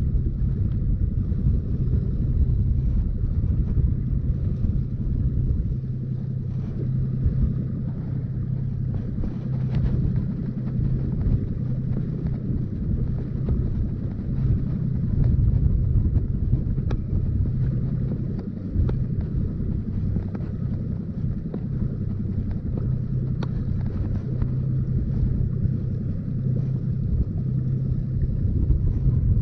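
Small fishing boat's outboard motor running steadily at trolling speed, a constant low hum, with wind buffeting the microphone.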